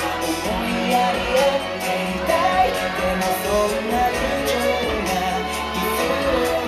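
Pop song with singing and a steady drum beat.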